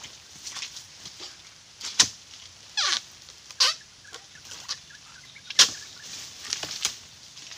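Chisel-bladed harvesting pole (dodos) chopping into an oil palm's frond stalks and fruit bunch: several sharp chops, the loudest about two seconds in and again a little past five seconds, with a short sliding squeal just before three seconds.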